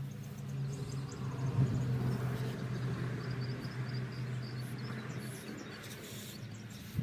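A steady low motor-like hum, with faint high chirps of birds or insects and a single knock about a second and a half in.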